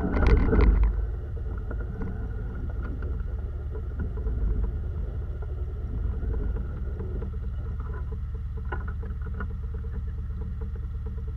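A car engine idling with a steady low hum, with a short burst of clatter in the first second.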